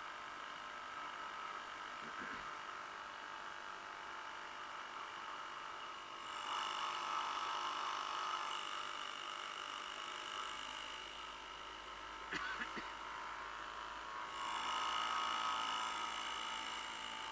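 Small two-stroke outboard motor, a 50-year-old Johnson 2 HP Seahorse, running steadily with a thin, buzzy whine, growing louder twice for about two seconds each. A couple of brief knocks come in, a few seconds in and again after the middle.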